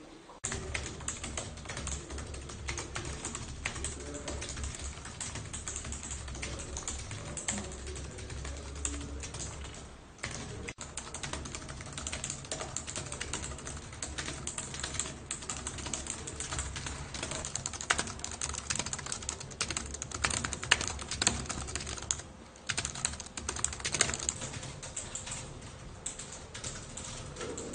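Fast typing on a computer keyboard: a dense, unbroken run of key clicks, dropping out briefly twice.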